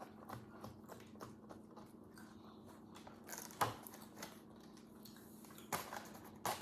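Faint sticky smacks and soft clicks from warm marshmallow Rice Krispie mixture, with a few sharper clicks in the second half.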